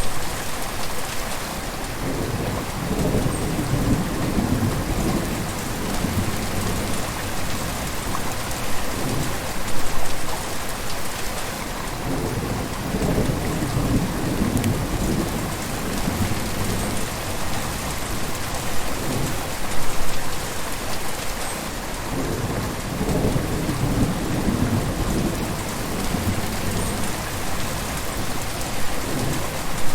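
Gentle river flowing: a steady rush of water with a low swell that comes back about every ten seconds.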